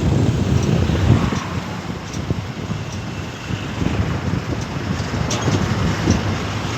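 Wind rushing over the microphone along with road and traffic noise from a moving vehicle, a loud uneven rumble.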